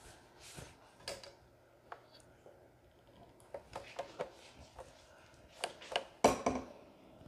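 Scattered clicks and knocks of a camera being picked up and moved by hand, with the loudest bumps about six seconds in.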